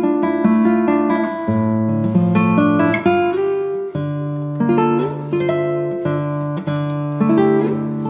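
Background music: an acoustic guitar picking a melody over held bass notes.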